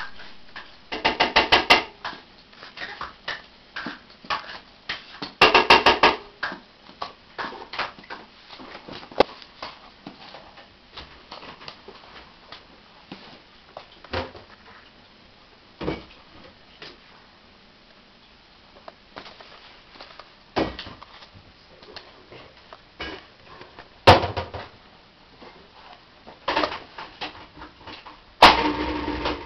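Intermittent taps, scuffs and clatter of a cat batting at and chasing a feather-on-a-string wand toy on carpet, with bursts of quick clicks about a second in and again around five to six seconds.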